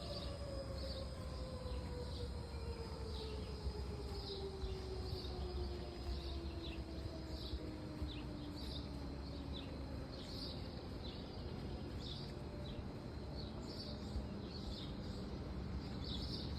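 Federal Signal 2001-DC outdoor warning siren winding down at the end of its test, its tone gliding slowly downward and fading out over about ten seconds. Birds chirp repeatedly throughout.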